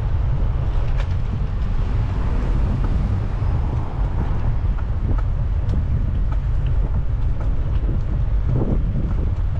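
Wind buffeting the microphone on a moving bicycle: a steady low rumble with a few faint clicks scattered through it.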